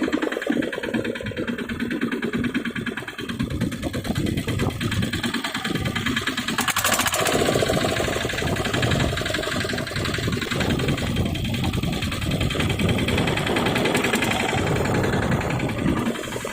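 A boat engine running steadily with an even, rapid beat.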